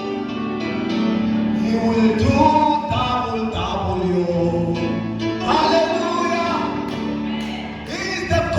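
Gospel music: a voice singing held, gliding notes over instrumental accompaniment.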